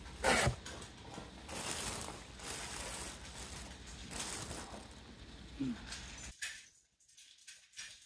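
Thin plastic bag liner crinkling and rustling as a hand pulls it open inside a cardboard box, in uneven bursts, stopping abruptly about six seconds in.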